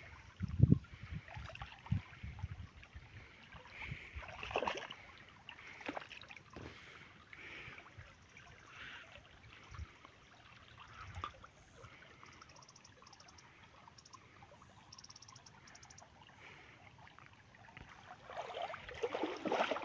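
Irrigation water flowing in an earthen field channel, faint and uneven, getting louder near the end. A few dull thumps in the first few seconds.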